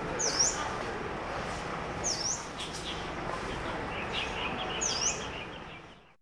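City park ambience: a bird gives a short, sharp call that dips and rises, repeated every couple of seconds over a steady background hum. Near the end comes a quick run of lighter chirps, and then the whole soundscape fades out.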